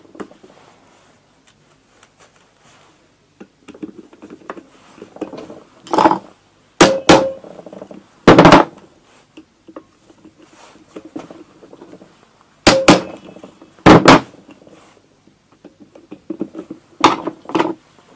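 Hammer blows on a hand impact driver, loosening seized screws in an engine case: sharp metal strikes in clusters starting about six seconds in, with quieter clinks of the tool being reset between them.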